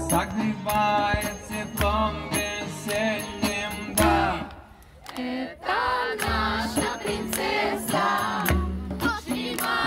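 Live folk-style music: a sung melody over a hand-drum beat and guitar. It breaks off briefly about halfway, then picks up again.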